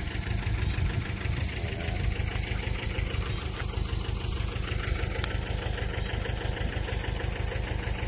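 Three-cylinder diesel engine of an Airman PDR-90S portable air compressor running steadily at idle.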